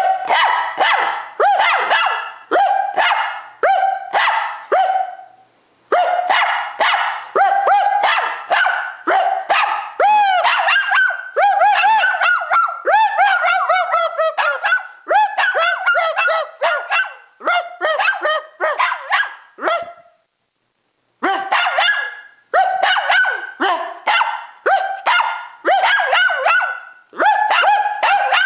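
Small Lhasa apso barking excitedly and without let-up, about two sharp barks a second, with some longer wavering, yelping calls near the middle. The barking breaks off for about a second a little after twenty seconds, then starts again.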